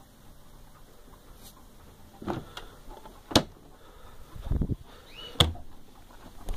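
Wooden console cabinet being handled: four knocks and thumps over a faint rustle, the loudest a sharp knock about three and a half seconds in and a duller thump a second later.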